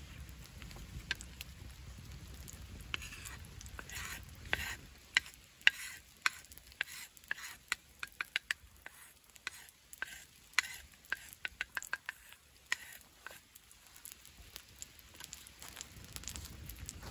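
Oil sizzling and spitting in sharp, irregular pops on a hot stone slab heated by an open wood fire, as a wooden spatula spreads it. The pops start a few seconds in and thin out near the end, over a low rumble from the fire.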